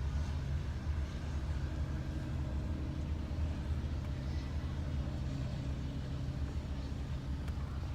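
Steady low rumble of an engine running at idle, unchanging throughout.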